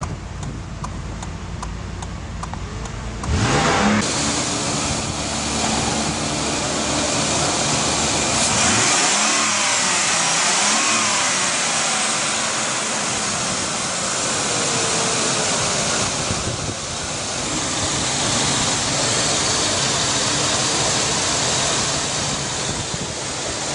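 A 1998 Ford Explorer's 4.0 L SOHC V6 is started: about three seconds of cranking, then it catches with a quick rising flare in revs and runs steadily.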